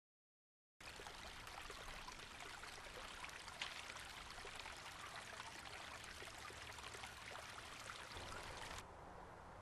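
Faint, steady rushing noise with scattered light crackles, like running water, starting about a second in; the hiss thins out just before the end.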